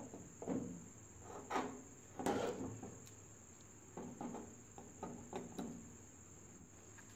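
Steel pistol slide of a TT-30 Tokarev handled and set down on a concrete floor: a series of light knocks and scrapes, loudest about two seconds in, over a steady high-pitched tone.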